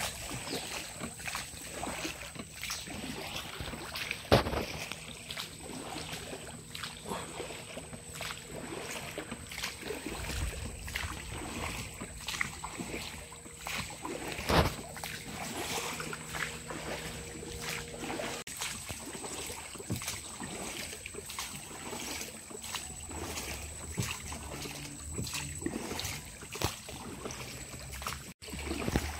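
Small wooden rowboat being rowed through calm water: oar strokes and water lapping against the hull, with many small knocks and clicks of wood, and two louder knocks about four and fifteen seconds in.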